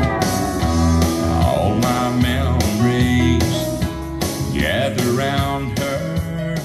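A song with guitar, a beat and a singing voice playing through a Marshall Emberton II portable Bluetooth speaker during a sound test. The music fades out right at the end.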